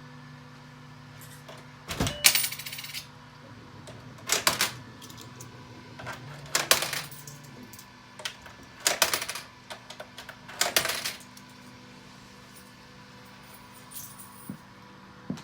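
Quarters fed one at a time into a vending machine's coin slot, each clattering down through the coin mechanism: about six coins, a couple of seconds apart. A steady low hum runs underneath.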